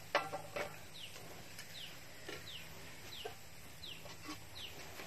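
Chickens nearby: short high peeps repeating about twice a second, with a lower clucking call every second or so. Two sharp knocks, as of a ladle striking the cooking pot, come near the start.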